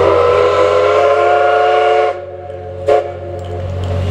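Steam whistle of the C11 207 steam locomotive sounding a long blast that cuts off about two seconds in, then a short toot about a second later, over a steady low hum.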